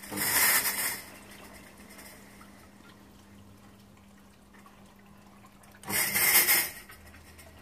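Fog machine hissing out two bursts of fog, each about a second long, one at the start and one about six seconds in, over a faint steady hum.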